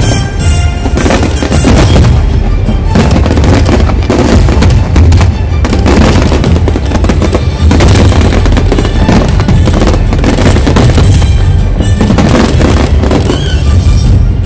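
Fireworks display at its height: many shells bursting at once in a continuous, very loud barrage of crackling and booming with no break.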